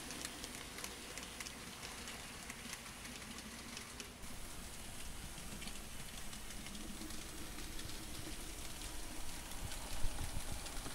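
Model-railway train, a steam locomotive hauling passenger coaches, running along the layout track. A steady faint hiss of small wheels on the rails is dotted with light irregular clicks, with a soft knock near the end.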